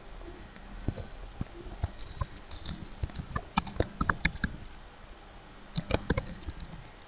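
Typing on a computer keyboard: scattered key clicks, with a quick flurry about three and a half seconds in and another near six seconds.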